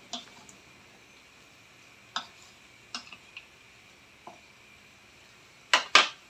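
Wooden spatula knocking against a black wok as fish pieces are turned and pushed around, a string of separate sharp clacks at irregular intervals. The loudest is a quick pair near the end.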